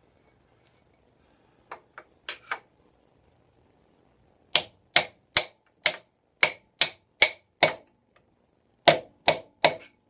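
Hammer striking the motorcycle's front wheel axle to loosen it for removal. A few light taps, then a steady run of eight sharp strikes about two a second, and three or four more near the end.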